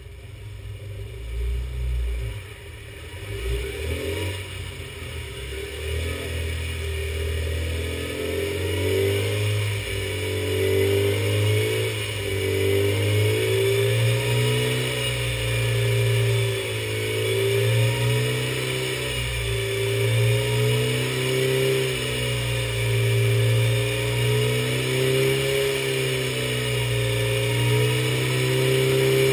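Classic Mini's A-series four-cylinder engine running on a rolling-road dynamometer, growing louder over the first several seconds and then holding a fairly steady speed.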